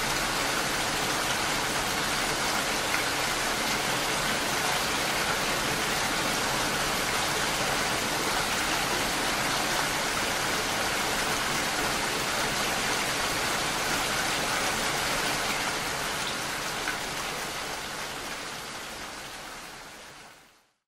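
Steady rain falling, an even hiss with no single drops standing out, fading out over the last few seconds.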